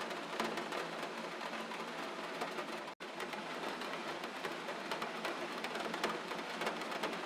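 Steady rain patter: an even hiss dotted with many small drop ticks. The sound cuts out for an instant about three seconds in.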